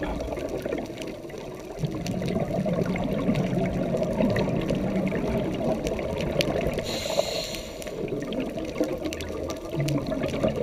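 Scuba divers' exhaled bubbles gurgling and crackling underwater, heard through an underwater camera housing, with a short hiss about seven seconds in.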